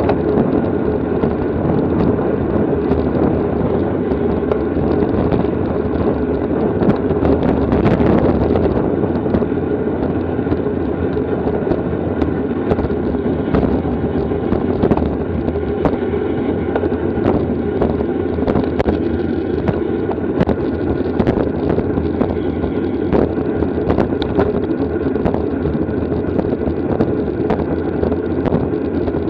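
Steady wind rush over the microphone of a bicycle moving at racing speed, with scattered sharp clicks and ticks from the bike and road.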